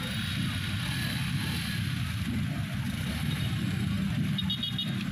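Street traffic: a steady low engine rumble from cars and motorcycles idling and creeping along, with a brief run of short high beeps about four and a half seconds in.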